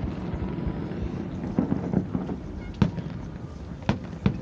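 Fireworks exploding: a low rolling rumble with scattered crackle, then sharp single bangs about three seconds in and twice more near the end.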